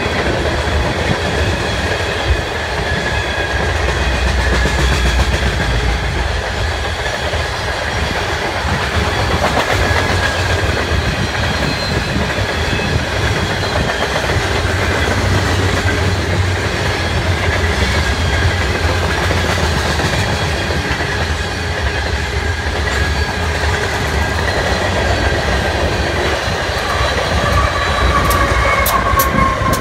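Long freight train of covered hopper cars rolling past: a steady rumble and clatter of wheels over the rail joints, with a thin, steady high squeal above it. Near the end a Union Pacific diesel locomotive comes by, adding a falling engine tone.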